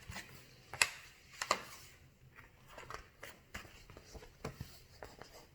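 Paper rustling and scattered soft clicks as a picture book is opened and its pages handled, with the two sharpest clicks about a second and a second and a half in.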